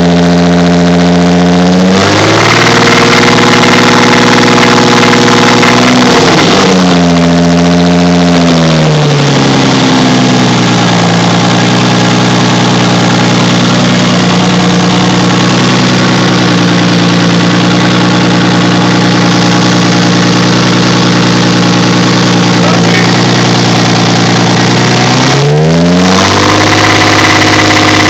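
Built Toyota 2JZ-GTE twin-turbo inline-six running, its revs raised and held at a few steady speeds: up about two seconds in, easing back down between about six and ten seconds, held lower, then raised again near the end. The owner is asking whether a noise from it is rod knock or piston slap.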